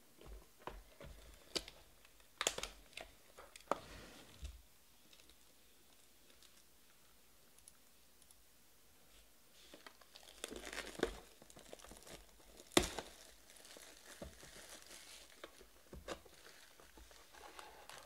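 Cellophane shrink wrap being torn and crinkled off a cardboard hobby box of trading cards, by hand. First come scattered clicks and scrapes of the box being handled, then, after a quiet spell, a longer stretch of crinkling with one sharp snap in the middle.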